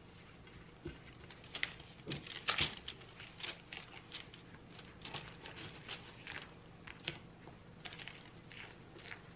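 A spoon scooping and stirring dry bath bomb powder in a stainless steel bowl and a plastic tub: irregular scrapes, clinks and crunchy rustles, loudest about two to three seconds in.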